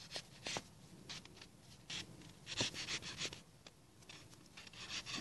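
Wooden dowel being pushed and twisted into a packed snowman, making faint, irregular short crunching and scraping strokes in the snow.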